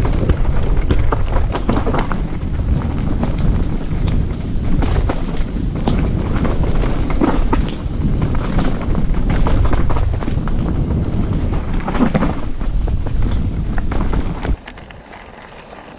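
Wind rushing over a GoPro action camera's microphone while a mountain bike clatters and rattles over rough downhill trail, with frequent sharp knocks from the bumps. The noise drops off suddenly near the end.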